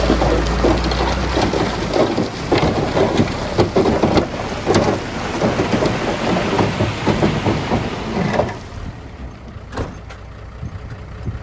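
Heavy earthmoving machinery working rock and soil: a dense run of crunching, clattering impacts over engine noise, which drops off sharply near the end to a quieter rumble.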